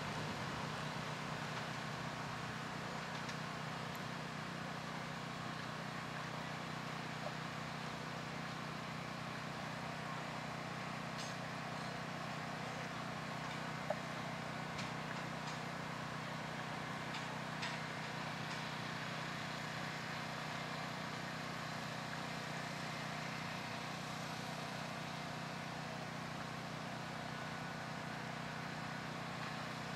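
Steady outdoor background noise with a constant low hum and a few faint, scattered clicks; no regular hoofbeat rhythm stands out.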